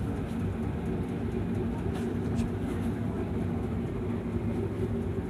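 Steady low background hum, as from a machine or distant traffic, with no speech.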